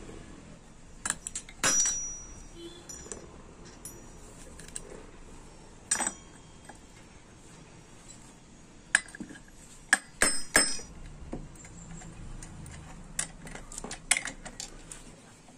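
Small metal engine parts and hand tools of a TVS 50 moped engine's clutch assembly clinking and knocking against each other as they are fitted. Irregular sharp clicks, the loudest about 2 seconds in, at 6 seconds, and a cluster around 9 to 11 seconds.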